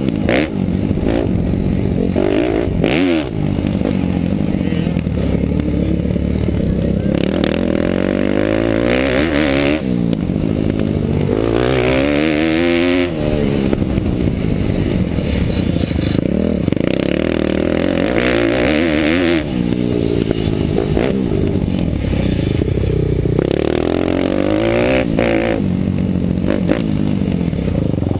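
Bucci Moto Daytona 190 pit bike's single-cylinder four-stroke engine revving hard and dropping back again and again as it is ridden round a motocross track, heard from a camera on the rider's helmet.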